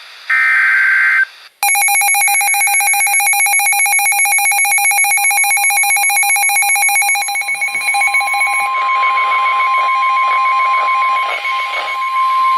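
Emergency Alert System alert tones: the last screeching SAME data burst of the header ends about a second in, then a rapidly pulsing electronic attention signal sounds. A steady single tone joins it partway through and grows louder while the pulsing fades, announcing a weather warning before the voice message.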